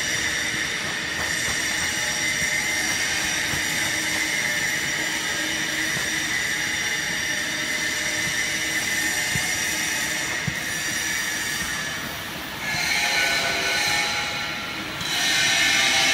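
Sawdust pallet hot press machinery running with a steady mechanical noise and a high whine. The whine grows louder twice: about three-quarters of the way through and again near the end.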